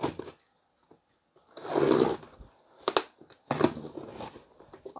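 Plastic packing tape being ripped off a cardboard box: one loud tear about two seconds in, followed by short scrapes and taps on the cardboard.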